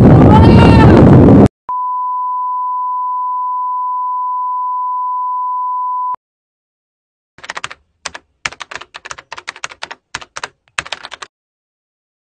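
A man yelling out with wind blasting on the microphone, cut off after about a second and a half. Then a steady, high, single-pitched beep held for about four and a half seconds, and after a short pause a rapid run of keyboard typing clicks that lasts about four seconds.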